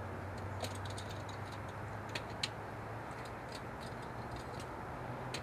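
Light clicks and taps of 1/64-scale die-cast toy cars being set into a plastic track's starting gate, a handful scattered through, over a steady low hum.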